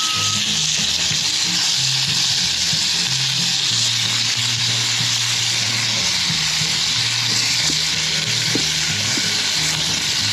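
Floured dove breasts frying over a fire, a steady, unbroken sizzle.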